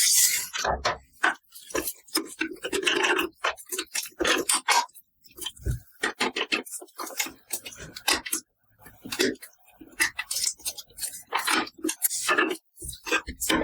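Small plastic toy food pieces being handled and set down in quick succession: irregular clicks, taps and scrapes with short pauses between them.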